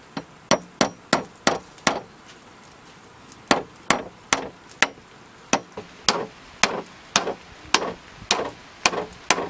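Hammer driving a nail into a green bamboo pole: a series of sharp, ringing strikes, about two to three a second, with a short pause about two seconds in.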